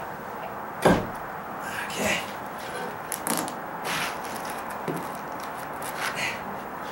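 A heavy thump about a second in, then several lighter knocks and scrapes as a concrete deck paver is pushed into place by foot and worked with a flat steel pry bar and a wooden block.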